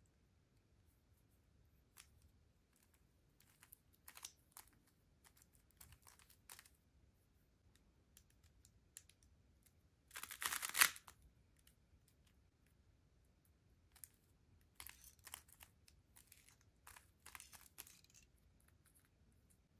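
3x3 puzzle cube being turned by hand: its plastic layers click and clack faintly in short runs of quick turns, with a louder burst of turning about halfway through.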